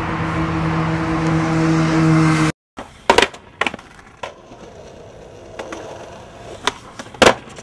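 Skateboard wheels rolling loudly over pavement with a steady hum. After an abrupt cut, a skateboard clacks sharply against the ground about five times, the loudest clack near the end.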